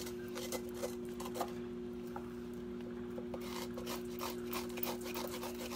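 A kitchen tool scraping out the inside of a small raw pumpkin, with irregular short scraping strokes, several a second, over a steady low hum.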